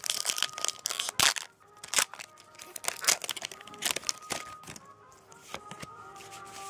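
A foil trading-card booster pack being torn open and crinkled by hand, with a run of irregular sharp crackles and snaps, then the cards sliding out of the wrapper. Faint background music tones run underneath.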